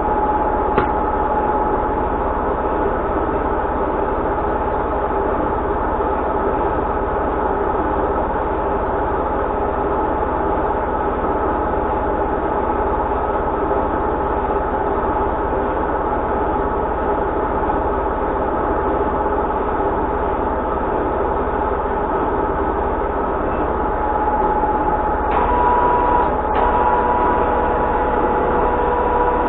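Metal lathe running steadily, a continuous machine drone with a steady whine from its gearing. A sharp click comes about a second in, and a higher tone joins near the end.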